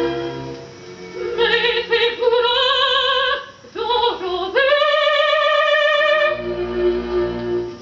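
A woman singing opera with wide vibrato in long held notes, with accompaniment, played from a record on a vintage Clément turntable.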